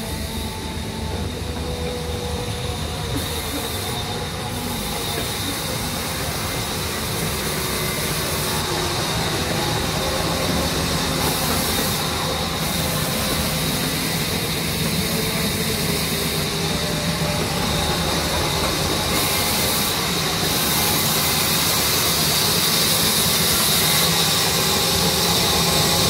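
Sawmill band saw running and cutting through a log: a steady mechanical noise with a thin, high, steady whine, growing gradually louder toward the end.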